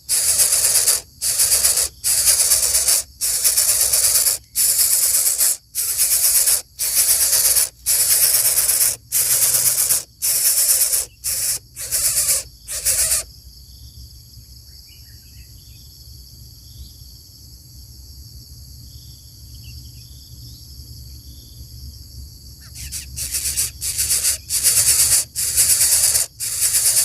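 Coucal chicks hissing harshly in repeated bursts, about one a second with short breaks. The hissing stops for about ten seconds in the middle, leaving faint distant bird chirps, then resumes near the end.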